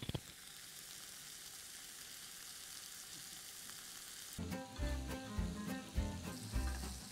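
Herb-coated lamb chops searing in a hot frying pan: a faint, even sizzle as they start to brown. About four seconds in it gets louder and busier, with knocks and a layer of steady tones over it.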